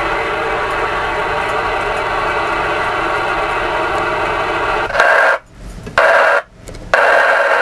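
Magnum 257HP ten-meter radio's speaker hissing with receiver band noise on AM, with steady hum-like tones running through it. About five seconds in the sound changes and then cuts out twice for about half a second each before the hiss comes back.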